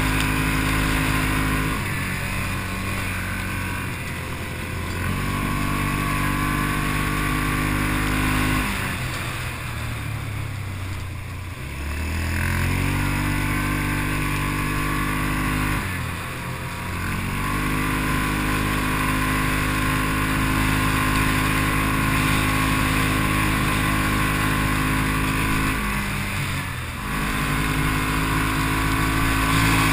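Off-road vehicle engine running under load over a trail, with the revs easing off and picking up again several times: about 2 s in, a longer drop around 9 to 12 s, then again near 16 s and 26 s.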